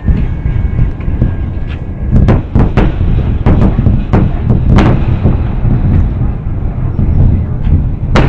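A rapid series of loud booms and sharp bangs over a heavy rolling rumble, most of them bunched in the middle and one more near the end: the shock wave from a meteor's airburst arriving.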